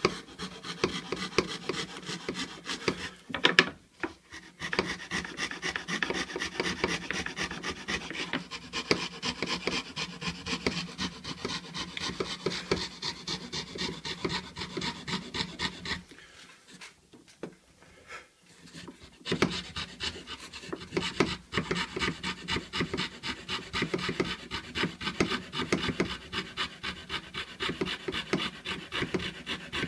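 Hand fretsaw cutting through a pine board in rapid, steady strokes, a rhythmic rasping. A sharp knock about three and a half seconds in is followed by a brief pause, and the sawing stops for about three seconds a little past the middle before starting again.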